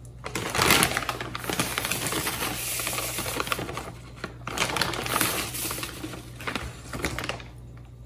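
Crinkly plastic bag of semolina rustling and crackling as it is handled and scooped from with a measuring cup, in two spells with a short pause just past halfway.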